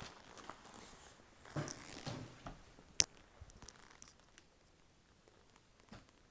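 Faint rustling of a leather jacket and clothes as a person gets up from an armchair and moves about, with one sharp click about three seconds in.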